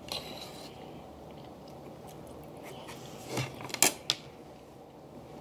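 Close-up eating sounds: quiet chewing, with a sharp click of a fork on a plate at the start and a few sharp clicks and crackles about three and a half to four seconds in as food is picked apart on the plate.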